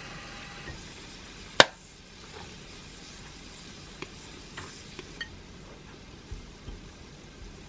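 An egg frying in a lidded pan, a steady sizzle. About a second and a half in, one sharp loud click, followed by a few light taps of a rice paddle on a plate as cooked rice is spread.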